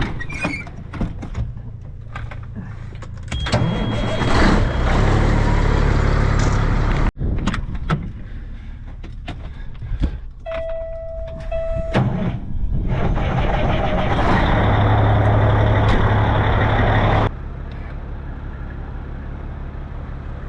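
Semi truck's diesel engine running steadily, with two long stretches of louder rushing noise, scattered clicks and knocks, and a short two-part warning buzz about ten seconds in.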